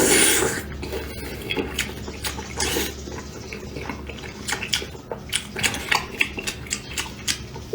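Close-up eating sounds of someone eating braised beef ribs: irregular wet smacks and clicks of chewing and sucking at the meat, with an occasional clink of dishware.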